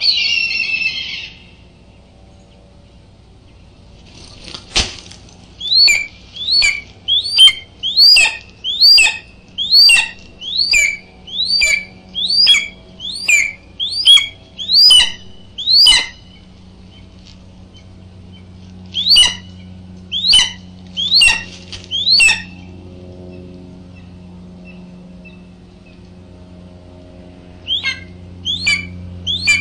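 A bird calling loudly close to the microphone: a run of about a dozen short, sharp calls, each rising then falling in pitch, a little over one a second. After a pause come four more, then another quicker run near the end. A short buzzy burst right at the start and a single knock about five seconds in, over a faint steady hum.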